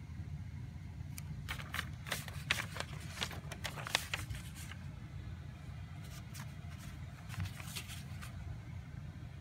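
Lined notebook paper rustling and crinkling as the pages are handled and turned, in two spells of short crackles, over a steady low hum.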